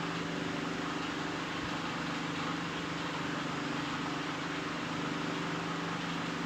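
A steady low hum with several fixed tones under an even hiss, unchanging throughout, with no distinct events.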